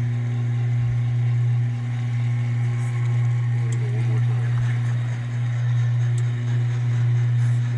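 Steady low mechanical hum of an automated poultry scalder running, its motor turning the mesh rack that dunks the birds in hot soapy water and lifts them out to drain.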